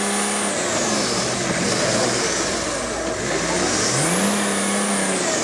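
Off-road 4x4's engine held at high revs under load, dropping off about half a second in, then revving up again near four seconds and easing off near the end. Its tyres spin and throw dirt as it climbs out of a steep ditch.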